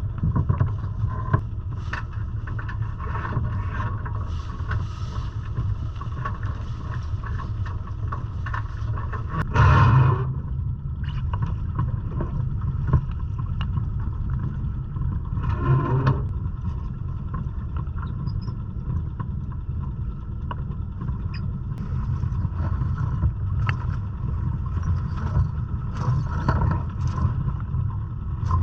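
Steady low rumble with water and wind noise aboard a Catalina 22 sailboat, with two louder rushing swells about ten and sixteen seconds in.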